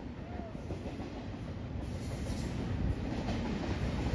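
Double-stack container cars of a freight train rolling past: a steady rumble and rattle of steel wheels on the rails that slowly grows louder.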